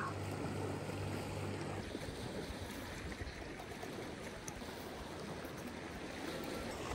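Steady wind and lapping water. A canister camp stove's low hum cuts off about two seconds in as its valve is turned off.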